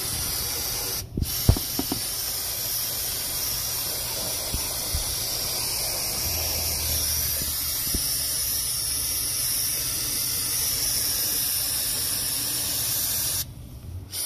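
Aerosol can of brake parts cleaner spraying through its straw in a steady hiss. The spray breaks off briefly about a second in, with a couple of sharp clicks, and stops shortly before the end.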